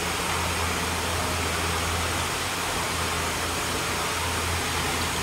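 Steady hum and hiss of a powered-up Hurco VTXU 5-axis vertical machining center and its surroundings, with a low steady drone and no cutting, tool-change or movement sounds.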